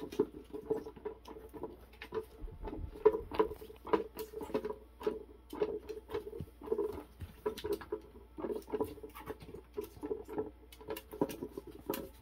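A meerkat's claws scrabbling and tapping irregularly on the hard plastic dome of an electronic Catit cat toy as it paws at the moving light inside.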